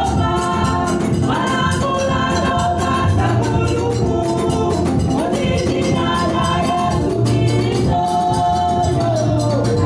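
Women singing a gospel praise song together into microphones, amplified through the church PA, over a steady, danceable beat of drums and bass.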